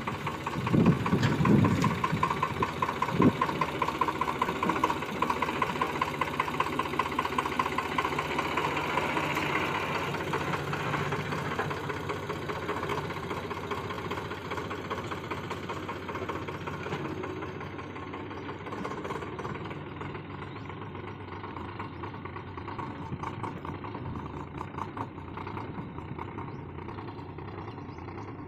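Eicher 485 tractor's three-cylinder diesel engine pulling hard as it drags a loaded trolley through a deep rut, with a couple of heavy thuds in the first few seconds. The engine sound fades slowly as the tractor pulls away.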